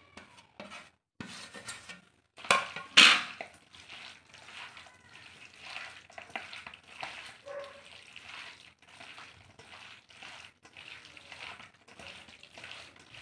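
Hand mixing raw chicken pieces with sliced onion, ginger paste and spices in a stainless steel bowl: wet squishing and rustling, the hand brushing the bowl. A plate is scraped against the bowl with a couple of loud knocks about three seconds in.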